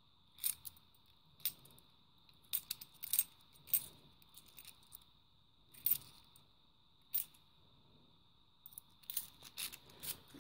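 Fifty-pence coins clinking against each other as they are shuffled in the hand: single sharp clicks every second or so, then a quicker run of clinks near the end.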